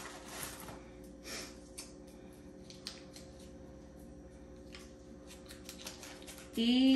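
Paper wrapper being peeled off a stick of margarine: a run of irregular soft rustles and crinkles, over a steady low hum.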